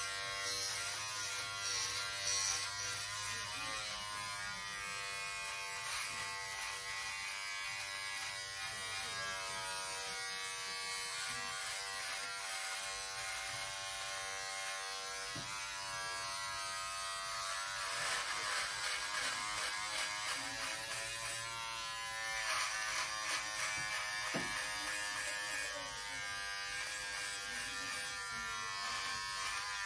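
Electric shaver running with a steady buzzing hum, growing louder and rougher in a few stretches as it is worked.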